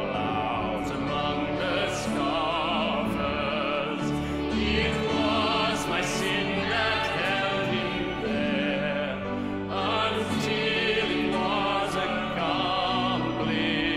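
Robed men's voices singing a slow hymn verse, solo lines passing between singers, accompanied by grand piano and violin.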